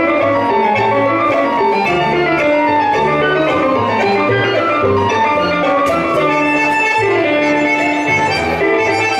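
Tango played live by a trio of piano, violin and bandoneon, with a steady, evenly marked beat in the low notes.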